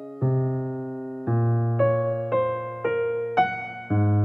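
Slow, gentle background piano music: low chords struck every second or two under single melody notes about every half second, each note fading away.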